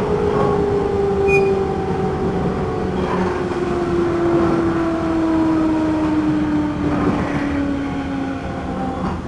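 Running sound inside a JR 211 series motor car (MoHa 210-5012) with MT61 traction motors: a strong motor and gear whine falls steadily in pitch as the train slows, over the rumble of the wheels on the rails. This car is known for abnormal noise, a tremendous swelling drone whose cause is unknown.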